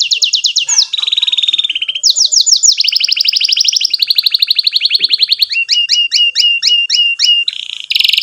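Domestic canary singing a long, loud song of rapid trills, switching to a new trill every second or so, with a stretch of slower, separate sweeping notes, about four a second, near the end.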